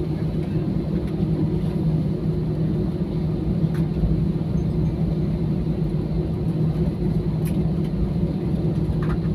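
Steady cabin drone of an airliner with its engines running before takeoff: an even low rumble with a couple of steady hum tones under it, and a few faint ticks.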